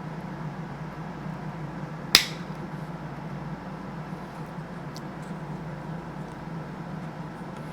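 A single sharp plastic snap about two seconds in as a glued tab breaks while the locomotive's plastic body shell is pried loose, over a steady low hum.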